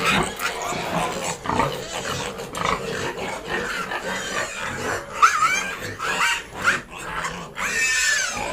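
Pigs grunting and squealing in their pen, many short overlapping calls with a few higher squeals past the middle and near the end; it is their feeding time.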